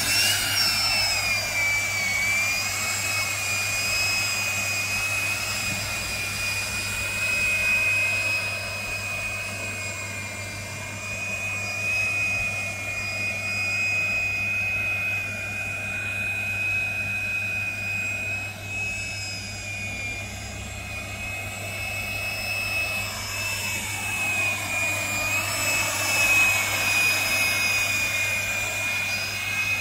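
Electric coaxial copter, a model of Starship, flying on its counter-rotating propellers: a loud, steady, high whine whose pitch wanders slightly.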